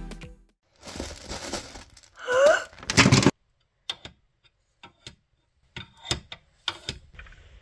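Plastic dolls and toy furniture being handled: a few light, separate clicks and taps. Before them come about two seconds of rustling noise with a brief rising squeal.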